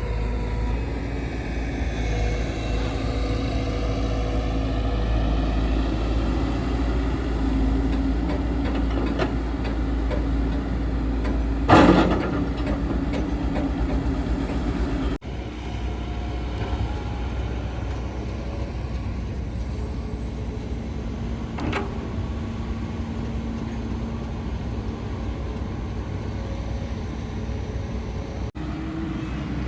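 Diesel engine of a JCB excavator loading a tipper truck running steadily, its pitch shifting a little in the first few seconds. A loud bang comes about twelve seconds in, with a lighter knock later on.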